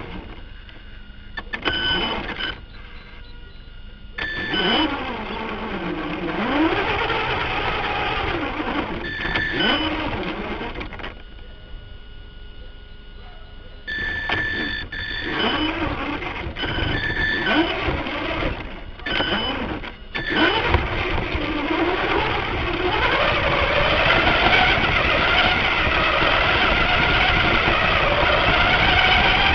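Electric RC car's motor whining up close in bursts as the throttle is opened and closed, its pitch rising and falling with speed, with short pauses between runs. From about 21 seconds in it runs without a break.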